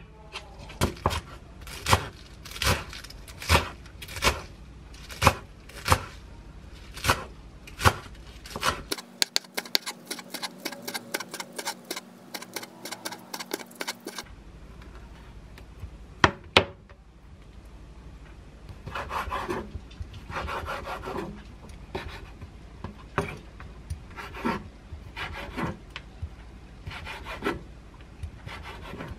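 A chef's knife chopping garlic chives on a wooden cutting board, the blade knocking the board about twice a second. About nine seconds in comes a stretch of much faster chopping. After that the cuts are softer and sparser as the knife slices raw squid.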